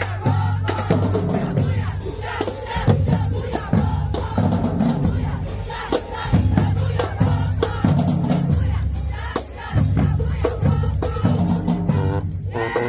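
Marching band playing: low brass holding heavy sustained notes that shift every second or so over bass and snare drums, with a crowd noisy in the background.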